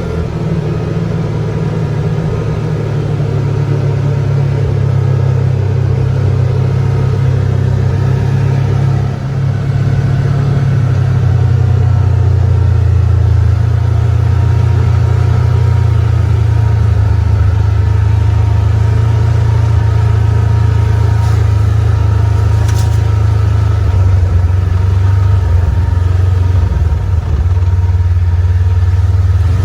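Vehicle engine running steadily while driving, heard from on board as a loud low drone that gets louder about ten seconds in.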